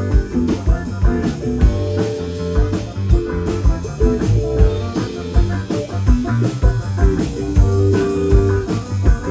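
Live rock band playing an instrumental passage: electric guitar and acoustic guitar over bass and a drum kit keeping a steady beat.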